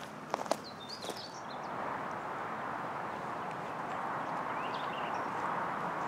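Outdoor ambience with no speech: a few sharp clicks in the first second as the camera is moved, and short bird chirps near the start and again about two-thirds of the way through. From about a second and a half in, a steady rushing noise rises a little and holds.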